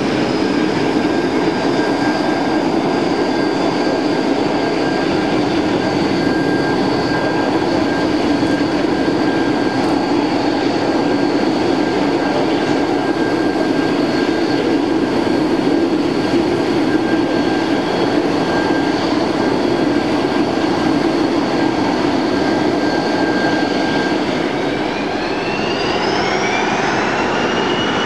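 Boeing 737-200's Pratt & Whitney JT8D turbofan engines running at taxi power: a steady rush with a high, constant whine. Near the end the whine rises in pitch as the engines spool up on the runway.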